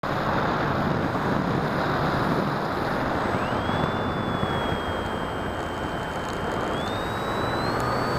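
Wind and propeller rush on the onboard camera microphone of an electric FPV radio-control plane in flight. About three seconds in, the electric motor's thin whine rises in pitch, then steps higher twice near the end as the motor speeds up.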